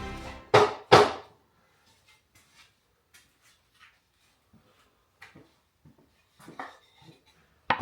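Two sharp knocks about half a second apart near the start, then scattered light clicks and taps of small parts and tools being handled on a workbench, with a few louder clicks near the end.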